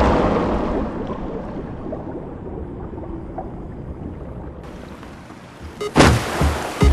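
Muffled underwater rush and bubbling after a body plunges into water, fading away over about five seconds. A sudden loud hit comes about six seconds in, followed by a smaller one.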